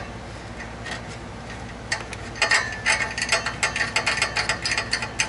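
Socket ratchet wrench clicking as exhaust flange bolts on a new catalytic converter are run in. A few single clicks come first, then rapid runs of clicks from about halfway in.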